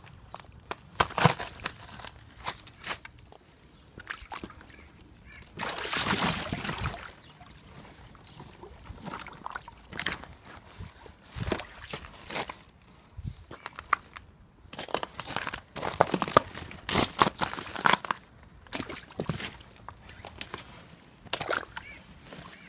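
Thin ice over shallow water being broken: irregular sharp cracks and crunches, with a longer scraping, sloshing stretch about six seconds in.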